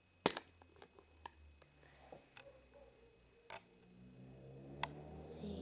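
Small plastic Bakugan figures being handled on a bed: one sharp click shortly after the start, then a few faint ticks. A low hum swells near the end.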